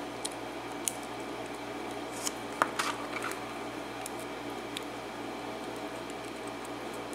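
A few light clicks and ticks of small lock pins and tools being handled while a pin-in-pin cylinder lock is taken apart, with a short cluster of them about two and a half to three seconds in, over a steady background hum.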